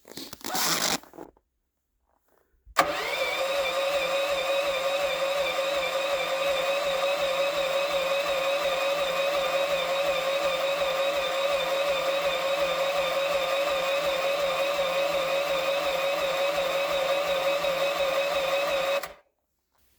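Generator engine being cranked in −25 °C cold without catching, for about sixteen seconds: a steady starter whine that wavers in pitch over an even pulse, cutting off suddenly near the end. A short noise comes in the first second, before the cranking starts.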